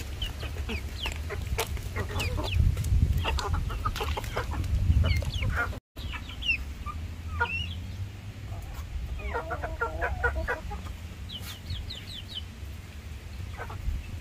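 Chickens clucking, with many short calls scattered throughout, a cluster of quick notes about two-thirds in and a rapid run of high notes soon after, over a steady low rumble. The sound drops out briefly about six seconds in.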